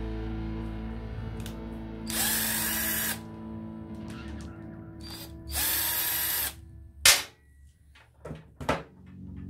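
Power drill spinning up in two short bursts of about a second each, its whine rising then holding, over background music. A sharp, loud knock comes a little after, followed by two softer knocks near the end.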